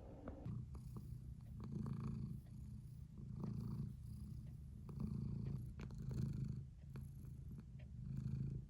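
A low rumble that swells and fades in repeated pulses, roughly one a second, with a few faint clicks.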